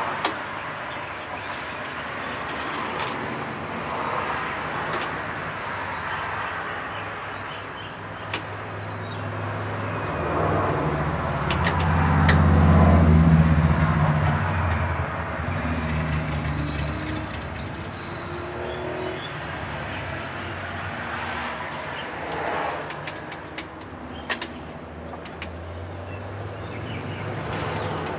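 Small wood-burning camp stove fire crackling in sharp scattered pops over steady wind noise. About a third of the way in, a passing engine's low hum swells, peaks and fades over several seconds, the loudest sound.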